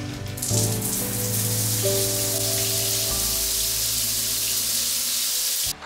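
Overhead rainfall shower head running, a steady hiss of water pouring down, with background music underneath. The water starts about half a second in and cuts off abruptly just before the end.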